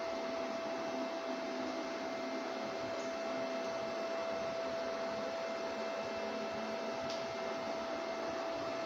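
Stepper motors of a 1000x650 CNC router jogging the gantry along the Y axis: a steady whine at one pitch over an even mechanical whirr.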